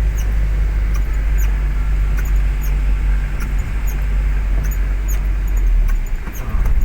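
Vehicle driving through heavy rain: a steady, loud low rumble of engine and road with the hiss of rain. Faint short high ticks come every half second or so.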